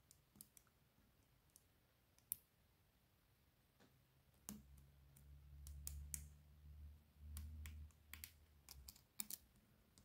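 Faint, scattered clicks of a steel hook pick and tension wrench working the pin stack inside a BKS short euro cylinder, pressing on the last, fifth pin. A low hum comes in about four and a half seconds in and fades near nine seconds.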